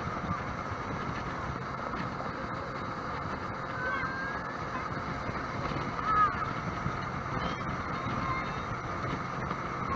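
Sea-Doo jet boat running steadily across a lake, with engine, water and wind noise. A short gliding call sounds about four seconds in, and a louder brief one about six seconds in.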